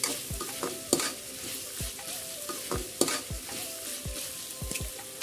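A metal spatula scrapes and knocks against a metal kadai as chicken pieces are stirred in a thick masala, over a steady sizzle of frying. The sharpest scrapes come about one second and three seconds in.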